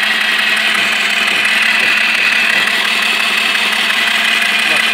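Rebuilt Mahindra Duro 125 cc four-stroke scooter engine on a bench trial, powered from a battery bridged with a screwdriver, running loud and steady with a high whine.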